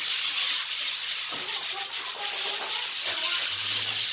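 Hand-held pad rubbed back and forth over a red cement floor: a steady, scratchy rubbing noise as the surface is sanded and polished by hand.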